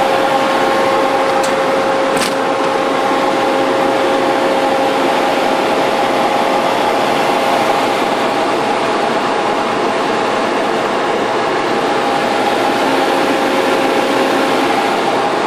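Hitch-feed die-cutting press running: a steady mechanical hum with a constant whine. Two short clicks about two seconds in.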